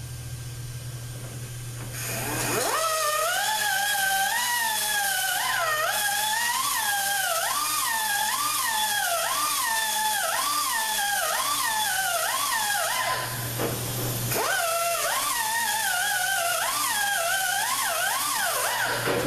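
Right-angle pneumatic die grinder with a small grinding wheel, grinding the rivet heads off a K2 clutch drum. It starts about two seconds in as a high whine that dips and rises in pitch about three times every two seconds as the wheel loads against the rivet and frees up. It stops briefly about 13 seconds in, then runs again until just before the end.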